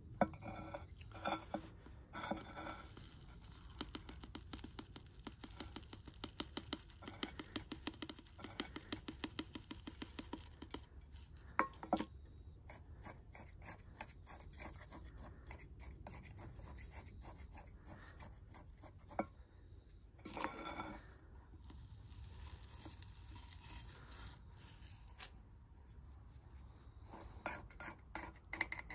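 Metal tweezers poking and scraping through small gravel top dressing in a plant pot: faint rapid clicks and gritty scrapes of pebbles knocking together, with a few sharper clicks.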